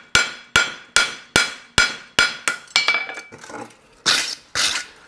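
Rounding hammer striking a hot steel horseshoe bar on an anvil, about eight ringing blows at roughly two and a half a second, forging in the heel frog plate. Near the end there are two strokes of a wire brush scrubbing scale off the steel.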